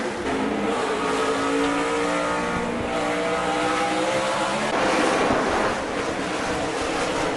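Stock-car racing engines at speed, a pack of several engines whose pitch climbs steadily over the first four seconds or so. About five seconds in comes a louder rushing pass, then a steadier engine drone.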